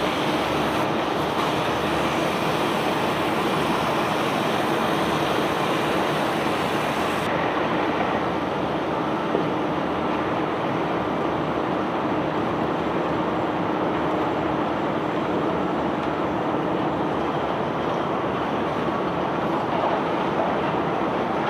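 Steady machinery rumble with a constant low hum from a self-unloading barge's discharge machinery running as it unloads stone cargo. The hiss on top thins out about seven seconds in.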